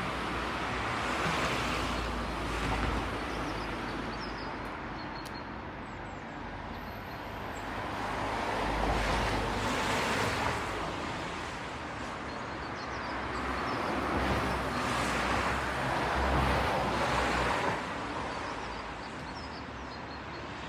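Outdoor background noise: a steady rushing that swells and fades every few seconds, with low rumbles from wind on the microphone and a few faint high chirps.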